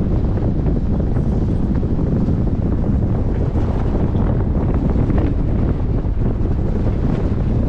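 Wind buffeting the microphone over the steady low rumble of a vehicle driving on a rough gravel track, with scattered light clicks and rattles.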